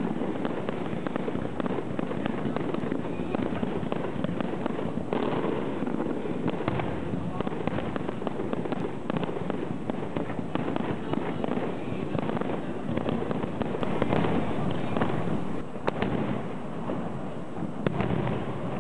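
Aerial firework shells bursting in quick succession with crackling, a dense unbroken barrage of bangs, loudest about three-quarters of the way through.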